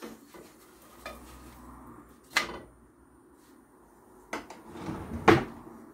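Wooden spatula knocking and scraping against a non-stick frying pan as a chapati is turned over: a few separate sharp clacks, the loudest near the end.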